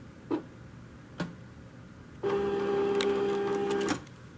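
Silhouette Cameo die cutter cutting: its motors run with a steady whine for about a second and a half, between quiet pauses marked by two short clicks.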